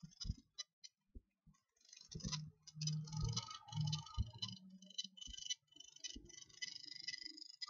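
Scattered light clicks and ticks, with a low hum from about two seconds in that fades out a few seconds later.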